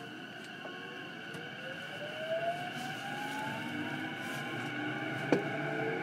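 E233-7000 series electric train's traction motors and inverter whining under the car floor, the pitch rising steadily as the train accelerates, over running noise from the wheels on the track. A single sharp clack comes about five seconds in.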